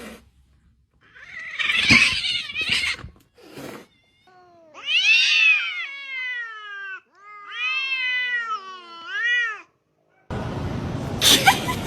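Cat yowling: two long, drawn-out meows that rise and fall in pitch, the first starting about four seconds in and the second following straight after.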